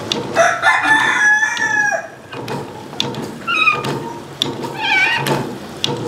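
Chickens: a rooster crows once in a long call that falls away at its end, and short hen-like calls follow twice.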